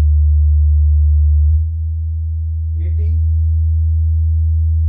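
JBL 5.1 soundbar's subwoofer playing a steady low bass test tone at 75 Hz that steps up to 80 Hz about a second and a half in, one stage of a stepped bass frequency sweep.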